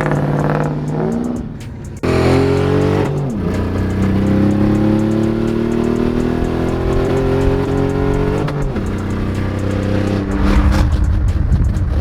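Chevrolet Camaro engine pulling under acceleration, its pitch climbing steadily, then dropping with a gear change about eight seconds in and turning into a heavier low rumble near the end.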